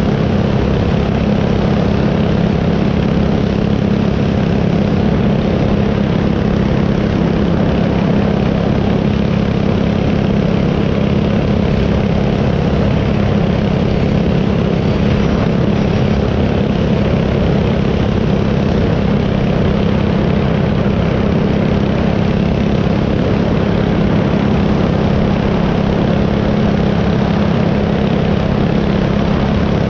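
Small single-cylinder four-stroke dirt-bike engine running at a steady, high speed while riding, with wind rushing over the microphone.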